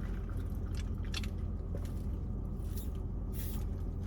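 A few soft clicks and mouth noises from drinking and eating, over a steady low hum from the car.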